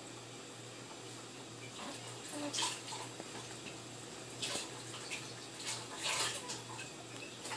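Dishes being washed by hand at a kitchen sink: water splashing and running in several short bursts, with a few sharp clicks, over a low steady hum.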